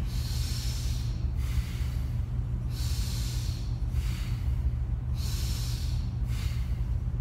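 A man doing forceful diaphragmatic belly breathing, each breath a loud rush of air about a second long, stronger and weaker strokes alternating in a steady rhythm. A steady low air-conditioner hum runs underneath.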